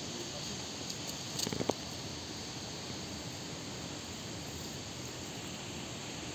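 Steady background hiss of outdoor ambience, with a brief faint sound about a second and a half in.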